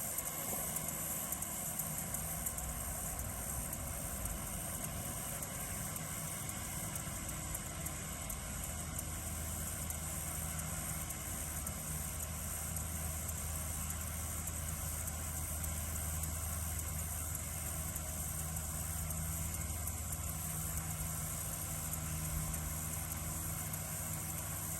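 Tractor engine running steadily while cutting hay, a low hum that grows a little stronger around the middle, over a constant high chirring of crickets.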